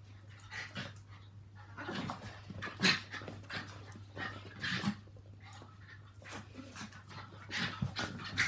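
A Yorkshire terrier and a Maltese play-fighting, with short, irregular dog noises and scuffles, loudest about three seconds in and again near the end, over a faint steady low hum.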